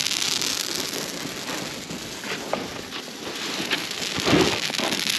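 Open wood campfire crackling and hissing steadily, with scattered sharp pops and a dull knock a little past four seconds in.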